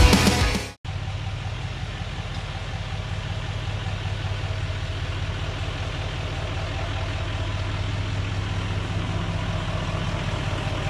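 Rock music cuts off under a second in. Then a 2017 Chevrolet Silverado 2500HD's 6.6 L L5P Duramax turbo-diesel V8 idles steadily on its factory exhaust.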